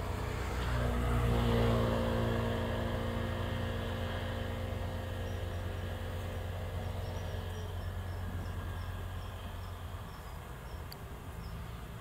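A vehicle passing by: a low hum that swells to its loudest about two seconds in, then fades away over the next several seconds. Faint high chirps repeat about twice a second through the second half.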